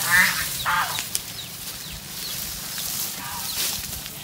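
Chickens calling, with a loud squawking call right at the start and a softer one about three seconds in, among short high peeps.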